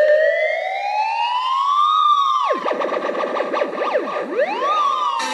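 An electronic siren effect: a wail that rises slowly for about two seconds and drops sharply, then fast swoops up and down, then one more rise and fall. Electronic dance music starts just before the end.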